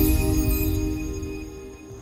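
Logo-intro music of sustained, ringing tones, fading out toward the end.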